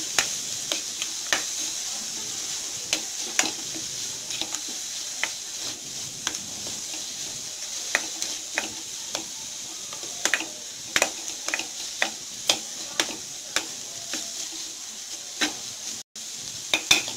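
Chopped vegetables sizzling in hot oil in a non-stick pan while a plastic spatula stirs them, with irregular scrapes and taps of the spatula against the pan over a steady sizzle. The sound drops out for an instant near the end.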